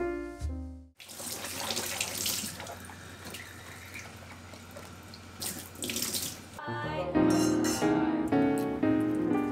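Tap water running into a kitchen sink for about five and a half seconds, starting about a second in, with background piano music before and after.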